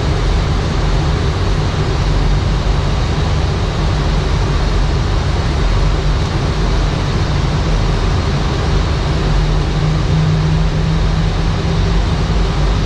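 Steady flight-deck noise inside an Airbus A319 airliner cockpit in flight on approach: an even rush of airflow over a deep, constant rumble, unchanging throughout.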